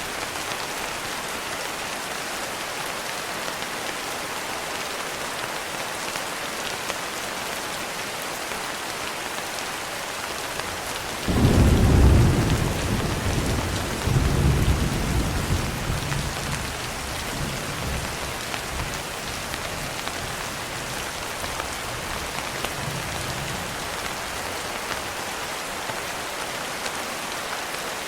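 Steady rain hissing. About eleven seconds in, a roll of thunder rumbles in low and loud, swells again a few seconds later, then dies away under the rain.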